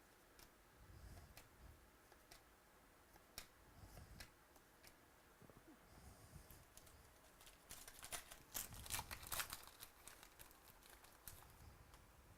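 Faint crinkling and tearing of a trading-card pack's foil wrapper, with scattered light clicks. The crinkling is loudest about eight to ten seconds in.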